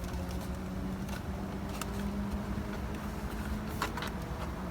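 A motor vehicle's engine running steadily in the background, a low rumble with a constant hum, with a couple of faint light clicks.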